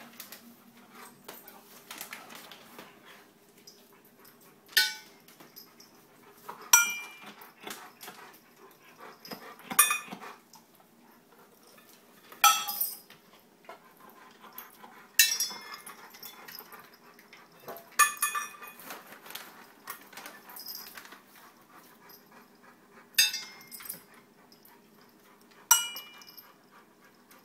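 Cat treats dropped into stainless steel food bowls, a sharp clink about every two to three seconds, as cats are fed treats one at a time.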